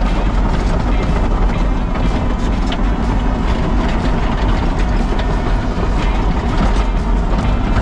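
Heavy diesel earthmoving machine running steadily under load, a loud continuous engine rumble with faint clanks of the machine working dirt.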